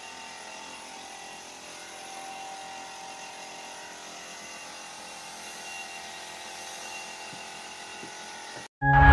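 Hose-fed compressed-air spray gun spraying wood finish, a steady hiss with a held whine under it. Near the end it cuts off and loud music begins.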